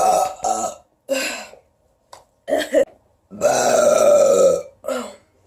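A woman burping after drinking soda, one loud burp after another: a long burp trailing off at the start, several short ones, then a long loud burp lasting over a second about three and a half seconds in, and a short one near the end.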